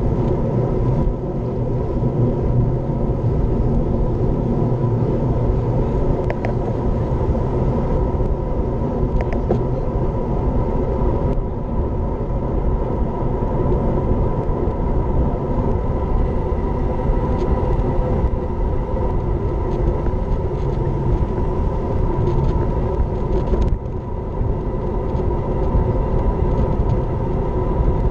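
Steady wind rush and tyre-on-asphalt rumble picked up by an action camera riding on a moving road bike, loud and unbroken.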